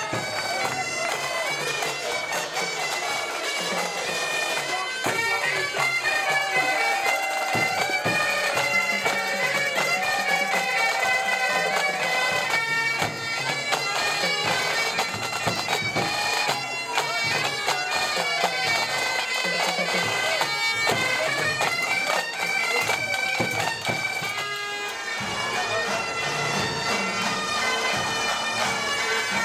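Bagpipes playing a tune over a steady drone.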